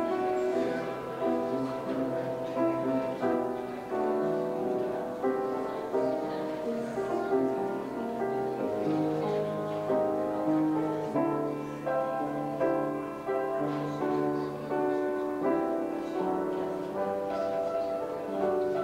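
Slow instrumental keyboard music: steady held chords over a slow bass line, wedding music for the ceremony.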